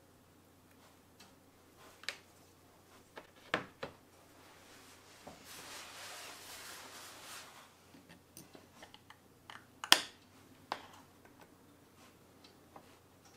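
Small handling sounds: scattered light clicks and taps as a wire-threaded sandeel lure master is handled and laid into a mold box on a glass sheet. There are a couple of seconds of soft rubbing in the middle and a sharper click later on.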